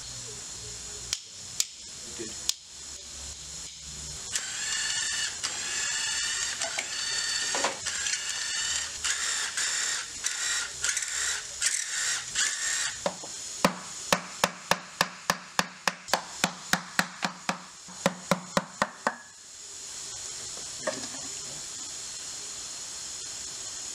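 Torx bolts on a transmission's differential housing being loosened, first by a hand ratchet with a T45 bit and then by a Milwaukee M12 Fuel cordless driver, its motor whining and wavering in pitch as the trigger is worked. After that comes a run of sharp, evenly spaced clicks, about three or four a second, for several seconds.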